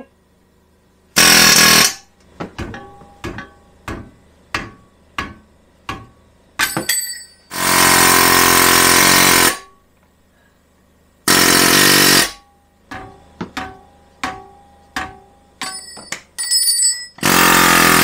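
Pneumatic air hammer hammering on the seized rear wheel hub of a 2014 Subaru XV Crosstrek to drive it apart from the knuckle, in four bursts, the longest about two seconds. Between the bursts come short metallic taps and rings.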